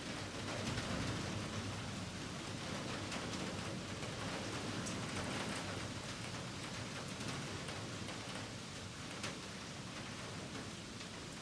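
Heavy rain falling steadily, a constant hiss with scattered sharper ticks of drops striking nearby.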